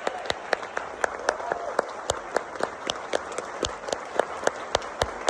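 Audience applauding, a dense patter of clapping with a few short whoops of cheering.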